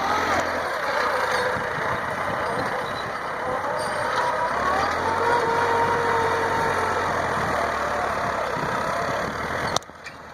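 Tractor engine running steadily while ploughing, its pitch wandering slightly up and down. Near the end it drops away suddenly with a click.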